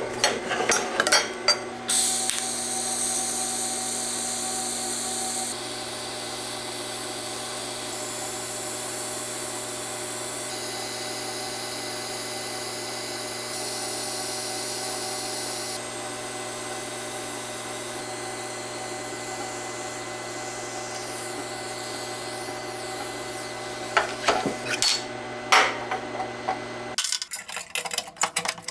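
Arc welder running on the turbo manifold: an even hiss over a steady hum, in several stretches that change abruptly every few seconds. Short clicks and taps of metal handling come near the start and again near the end.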